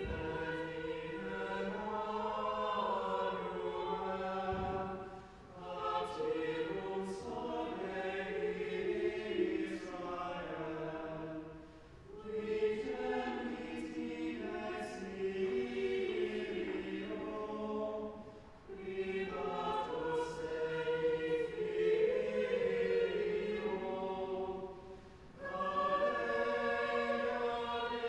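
Choir singing sacred music, several voices together, in phrases about six or seven seconds long with a short pause between phrases.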